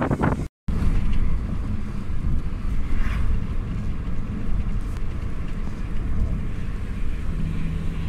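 Car driving at road speed: a steady low rumble of tyres and engine with wind buffeting the microphone. The sound cuts out completely for a moment about half a second in, then carries on.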